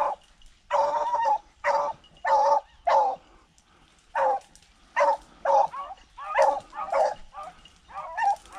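Rabbit hounds barking on a rabbit's track as they run it, in about a dozen short calls, roughly one or two a second, a few drawn out longer. The barking is the sign that the dogs are on the scent and driving the rabbit.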